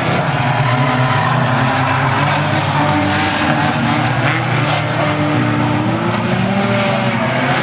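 Several banger race cars' engines revving at once, their pitches rising and falling, with tyres skidding on the track.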